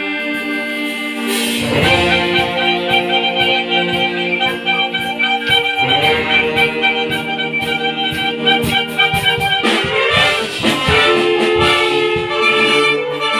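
A wind band playing: clarinets, saxophones and brass in held chords over a regular beat, the full band coming in louder about a second and a half in.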